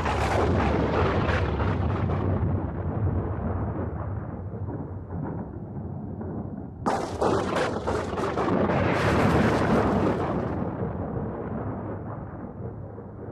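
Thunder: a crack rolling into a long rumble that slowly fades, then a second sharp crack about seven seconds in that crackles, swells louder and dies away into a low rumble.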